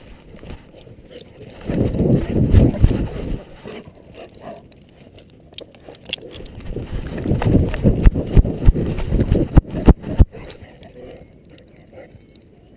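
A dog's collar-mounted camera jolted and rubbed by the dog's running gait: two spells of rapid, uneven low thumping, the second longer and ending with a few sharp knocks.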